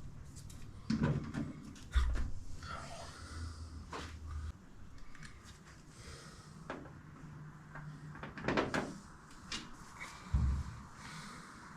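Irregular clicks, taps and a few heavier thumps of hands working small parts while fitting truck cab roof lights.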